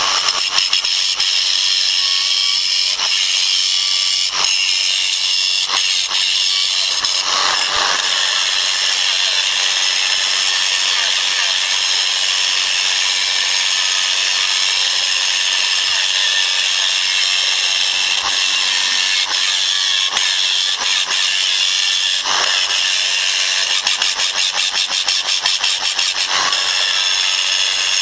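Power grinder running steadily, grinding material off to smooth it down; a loud, high-pitched grinding whine and hiss, fluttering briefly near the end.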